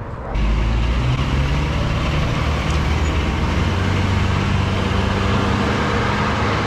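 Fire engine driving along a road, its engine running loudly and steadily. The sound begins abruptly a moment in.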